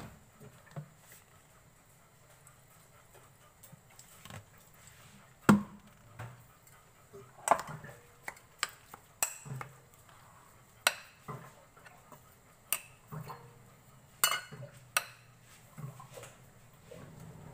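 Scattered clinks and knocks of kitchenware being handled, about a dozen separate hits with quiet between them, the loudest about five seconds in.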